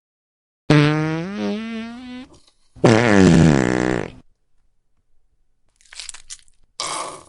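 Two long, drawn-out farts with a wavering pitch, then two short sputtering ones near the end.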